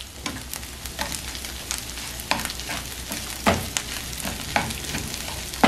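Chicken sisig sizzling in a nonstick frying pan while a slotted spatula stirs and scrapes through it, with scattered clicks of the spatula against the pan, the loudest about three and a half seconds in.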